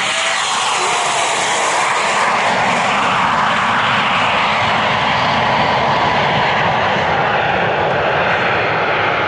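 Dassault Falcon 20 twin-jet's rear-mounted engines running loud and steady as it climbs away, with a whine falling in pitch in the first second or so as it passes and recedes.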